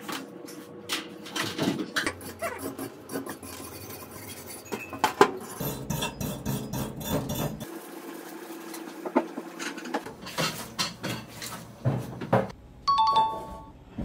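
Kitchen cleaning clatter: items being handled and set down on stainless-steel counters and in a steel sink, with irregular knocks, bangs and clinks of metal and dishware. Near the end comes a short, steady two-note tone.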